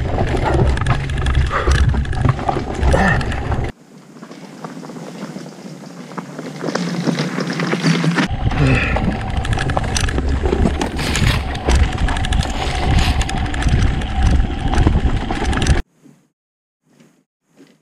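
Electric motorcycle riding over a loose rocky trail: wind buffeting the microphone over a steady rumble, with tyres crunching and the bike rattling on the rocks. It is quieter for a few seconds about four seconds in, then cuts to near silence near the end with a few faint sounds.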